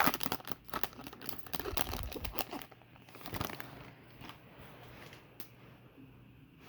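Trading card pack's plastic foil wrapper being torn open and crinkled, dense crackling for about the first three seconds, then quieter handling with a few soft ticks.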